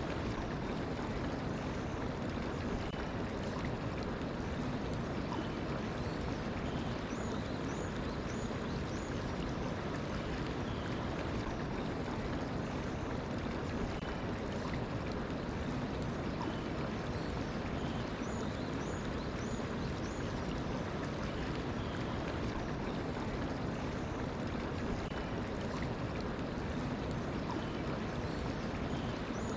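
Mountain stream flowing steadily with an even rushing sound. A small bird sings a short series of high chirps three times, roughly ten seconds apart.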